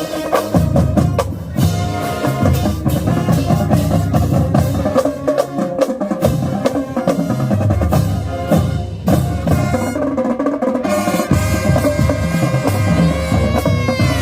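Marching band playing: a drum line of bass and snare drums beating a busy rhythm under held horn notes.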